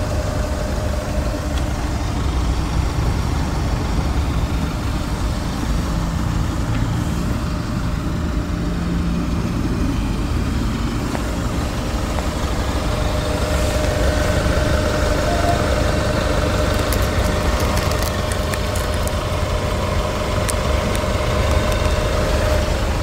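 Range Rover Velar's 2.0-litre four-cylinder turbodiesel idling steadily, a continuous low rumble with a faint steady tone over it.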